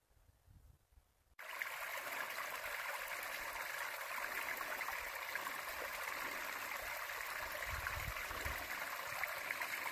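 Near silence, then about a second and a half in a small stream starts up abruptly, trickling steadily over a little rock step into a shallow pool.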